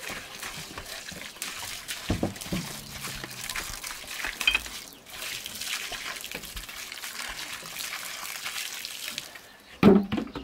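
Water trickling steadily, with scattered light knocks and a short louder sound just before the end.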